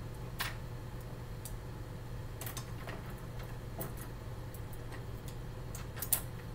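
Scattered light clicks and taps of a paintbrush handled against a flexible plastic paint palette, about half a dozen at uneven intervals, the sharpest about six seconds in, over a steady low hum.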